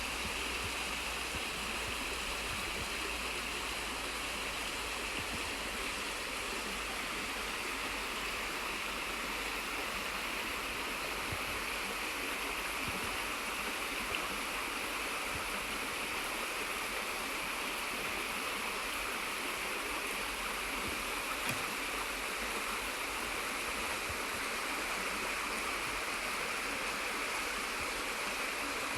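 Running water of a stream, a steady, unbroken rush.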